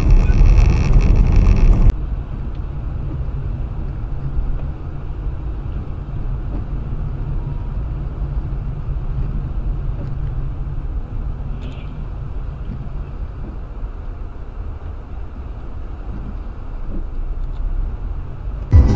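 Steady low rumble of engine and tyre noise heard from inside a moving car on a dashcam. It is preceded by louder, hissier road noise that cuts off suddenly about two seconds in.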